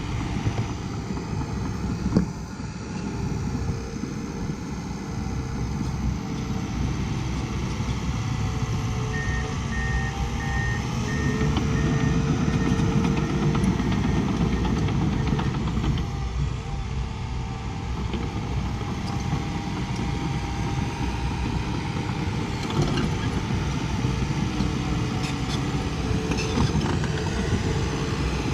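Diesel engine of a heavy earthmoving machine running steadily under work, with a back-up alarm beeping about half a dozen times roughly ten seconds in.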